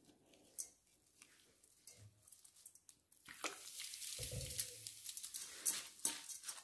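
Faint rustling and pattering of damp flattened green rice (khao mao) being tossed and squeezed by a gloved hand in a stainless steel bowl, the rice moistened with pandan juice and Sprite. Sparse at first, fuller from about halfway.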